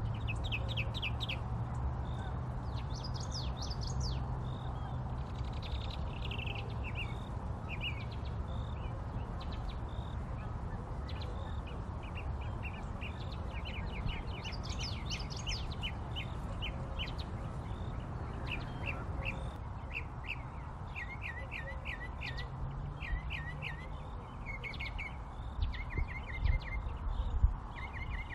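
Small songbirds chirping and trilling in short repeated phrases throughout, over a steady low background rumble. A few low thumps near the end.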